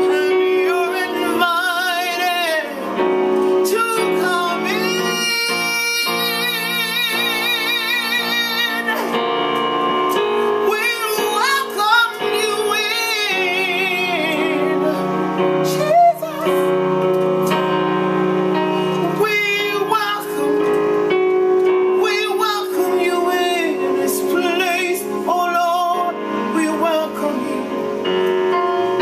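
A woman singing a gospel worship song with strong vibrato and melodic runs, over a sustained keyboard accompaniment.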